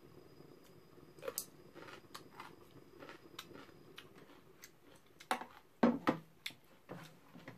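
Someone eating dumpling soup: quiet chewing with scattered light clicks of chopsticks against a metal bowl, and a run of louder clinks and knocks over the last couple of seconds.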